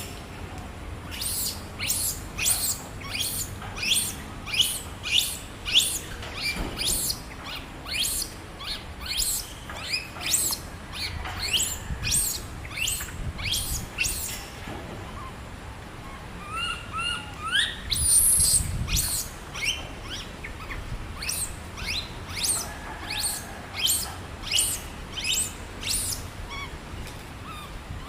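A bird chirping over and over in quick, high, sharp calls about twice a second, with a short pause in the middle and a few rising chirps after it.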